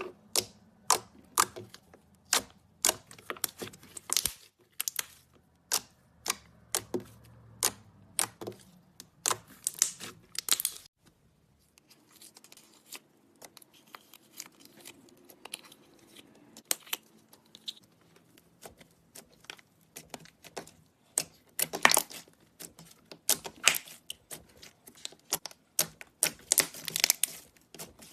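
Slime being squeezed and played with by hand, giving a string of sharp pops and crackles, about two a second at first; after a short break it goes quieter and softer, then crackles densely again near the end.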